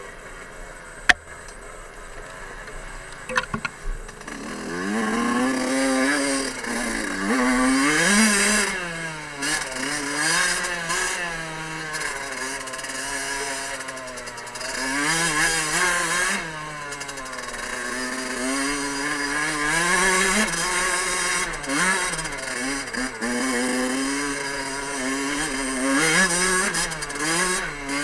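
Fantic 50 Scuderia's 50cc two-stroke enduro engine revving up and down again and again under the rider's throttle on a rough trail. A few sharp knocks come in the first few seconds, while the engine is quieter.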